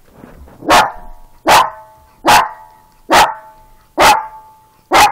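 Kyi-Leo, a small dog breed, barking six times in a steady rhythm, about one bark every 0.8 seconds, starting a little under a second in.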